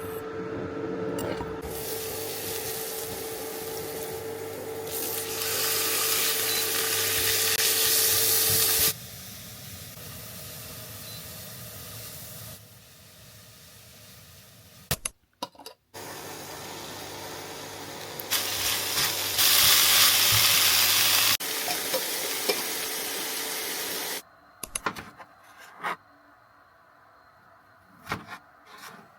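Food sizzling in a pan, a steady hiss over a low steady hum, in several short clips that cut in and out abruptly. Near the end come quieter scattered clicks of kitchen handling.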